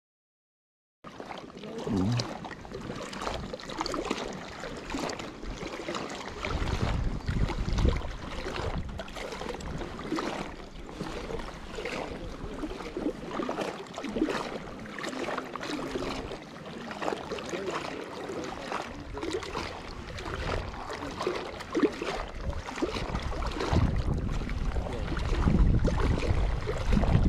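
Water lapping and splashing around a float tube on a lake, with wind gusting on the microphone, most strongly about seven seconds in and near the end.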